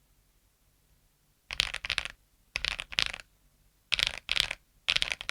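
Akko mechanical keyboard with tactile switches being typed on: four short bursts of several keystrokes each, starting about a second and a half in.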